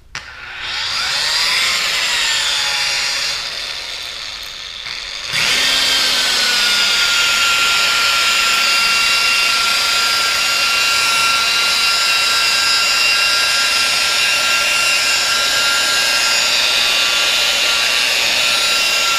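DeWalt variable-speed rotary polisher with an orange foam pad compounding a plastic taillight lens. It starts up with a rising whine at low speed, then about five seconds in steps up to a higher speed and runs loud and steady.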